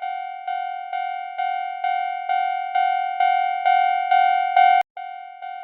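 Japanese railroad crossing warning bell ringing its repeated kan-kan, about two strikes a second and growing louder. A sharp click near the end breaks it off, and the ringing starts again quieter.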